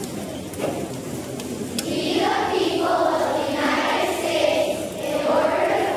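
A group of voices singing together, starting about two seconds in after a low murmur of the gathered audience.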